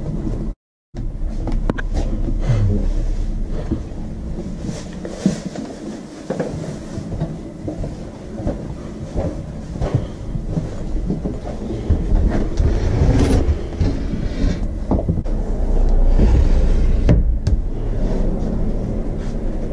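Wooden sliding doors rolling in their tracks with a low rumble and knocking, mixed with the bumps and rustle of a handheld camera being carried. A brief cut to silence just under a second in.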